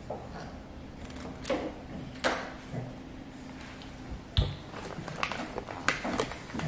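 Kitchen handling sounds of a knife cutting butter into slices and setting the pats on the meat: scattered light clicks and knocks, with one heavier thump about four seconds in.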